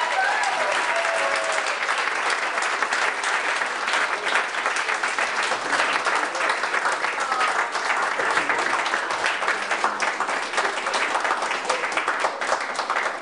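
A small group of people clapping steadily, with a few excited voices calling out at the start.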